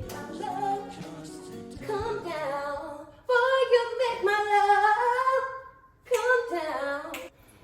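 Music with a singing voice carrying a melody, including a long held phrase in the middle.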